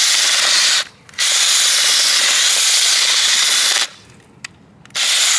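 Ryobi cordless drill spinning a garden auger into dry soil, running in three stretches: it stops briefly just under a second in, runs again for about two and a half seconds, then comes back in a short burst near the end, with a single click in the last gap.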